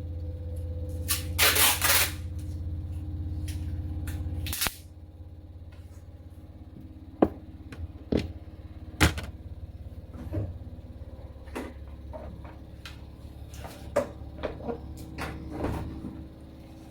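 A steady low electric hum that cuts off suddenly about four and a half seconds in, followed by scattered clicks and knocks of handling, like plastic or metal parts being moved.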